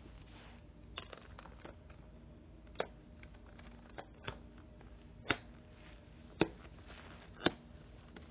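Homemade orange slime being squeezed and played with by hand, giving a string of short, sharp pops about a second apart over a faint steady hum.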